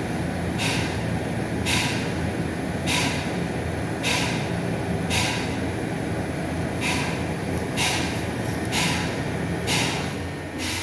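Repeated banging, roughly once a second with a short break about halfway, over a steady low hum.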